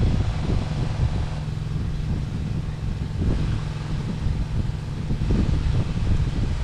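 A small engine running steadily with a low drone and no change in speed, with uneven bumps and rumbles over it.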